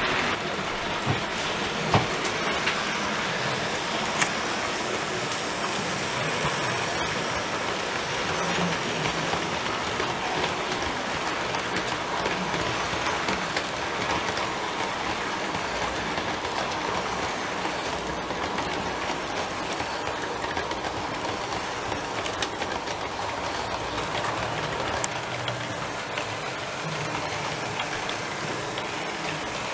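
OO gauge model trains running past: a steady rolling noise of wheels and motors on the track, with a few sharp clicks, the clearest about two and four seconds in.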